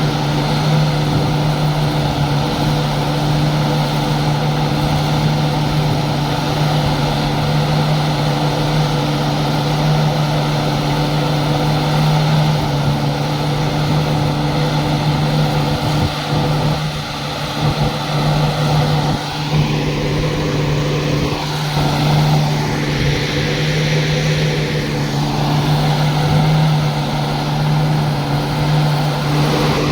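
Greaves CPCB-II diesel generator engine of an end-on-generation power car running at a steady speed, a constant low drone with a strong hum. The uploader calls its sound faulty.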